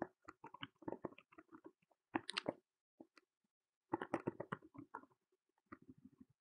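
Computer keyboard being typed on: faint runs of quick key clicks broken by short pauses.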